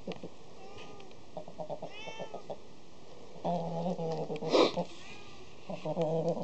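An animal's low, rapidly pulsed grumbling calls in two bouts, about three and a half and six seconds in, with a short, loud, harsh burst between them and a few faint chirps before.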